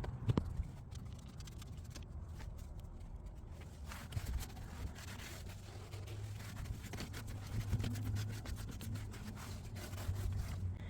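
Cleaning wipe being rubbed over a car's surfaces in irregular strokes, with a few sharp knocks at the start.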